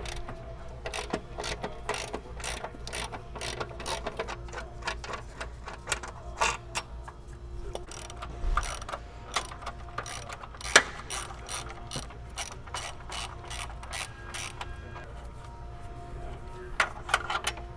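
Hand ratchet with a 14 mm socket clicking in quick runs as the front upper control arm bolts are worked loose. There is one sharper metallic knock about eleven seconds in.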